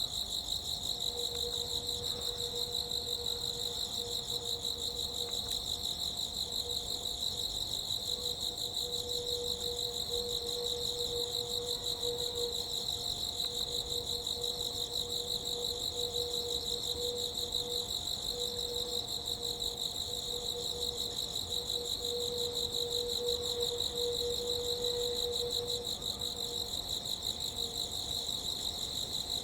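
Crickets chirping in a dense, steady, rapidly pulsing chorus, with a steady hum underneath and a fainter wavering tone joining about a second in.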